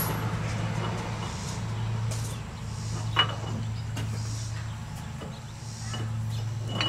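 Three light metallic clinks from a 5-to-6-lug conversion wheel spacer being fitted over a car's rear hub studs: one at the very start, one about three seconds in and one near the end, the last two with a brief ring. A steady low hum runs underneath.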